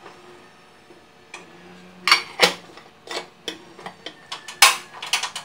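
Aluminium cooking pot and its lid clinking and knocking as the lid is handled and set on the pot, a string of sharp metallic knocks starting about a second and a half in, loudest near the end.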